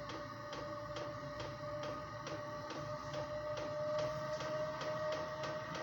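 Chinese diesel air heater running in its start-up phase, still cold: its fuel dosing pump ticks evenly, about four times a second, over the steady hum and whine of the blower.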